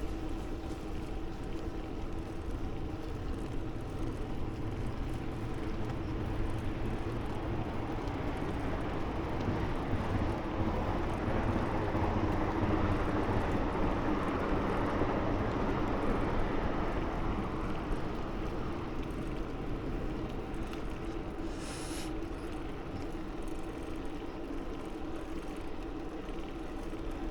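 Steady wind and road noise of a bicycle ride, with a low hum underneath, growing louder through the middle and easing off again; a short hiss near the end.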